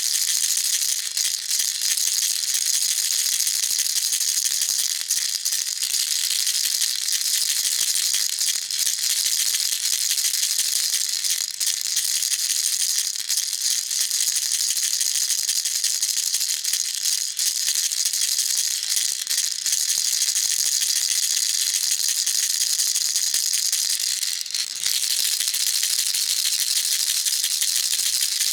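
Baby rattle shaken continuously: a dense, fast, high-pitched rattling that barely lets up, with a brief dip about 24 seconds in.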